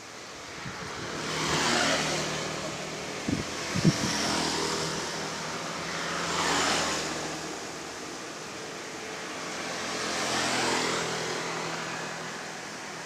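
Three vehicles passing one after another on a road, each a swell of engine and tyre noise that rises and falls as it goes by. Two sharp knocks come a little over three seconds in.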